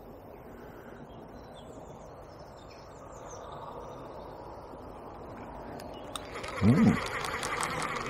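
Steady hiss of a fast small river with faint birds chirping. About six seconds in, a louder buzzing sound with fast even ticks starts. Just before seven seconds comes a short low sound that rises and falls in pitch, the loudest thing here.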